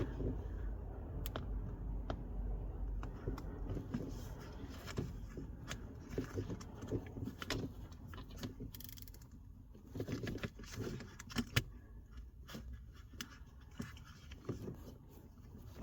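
Handling noises from a leather gear stick gaiter being worked down over the gear stick into the centre console: scattered small clicks, rustling and scraping.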